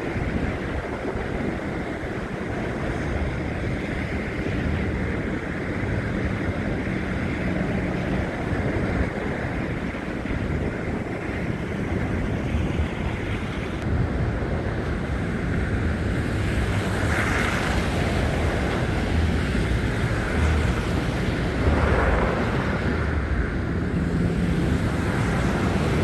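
Wind buffeting a handheld phone's microphone in a snowstorm: a steady rushing noise with a gusting low rumble underneath.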